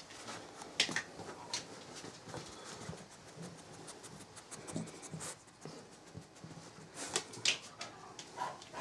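Hands rustling and working through a puli's corded coat, pulling apart the cords, with irregular soft crackles and scrapes.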